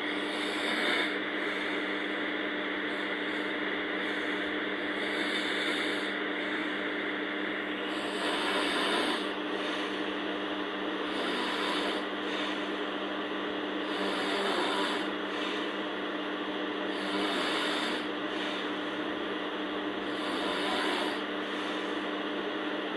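A sleeping person snoring: slow, rasping breaths that swell every three to four seconds over a steady low hum.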